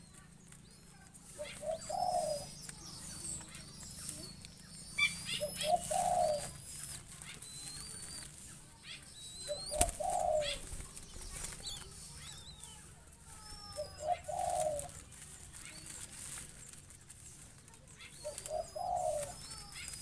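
Zebra doves: a short coo repeats about every four seconds, with wing flutters from hand-fed zebra dove chicks and many faint high chirps from other birds. A single sharp click comes about halfway through.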